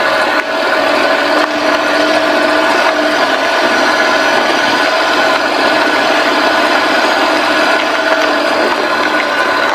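Kei truck driving along a dirt road, heard from a camera mounted beside the front wheel: steady engine and road noise with a steady whine running through it.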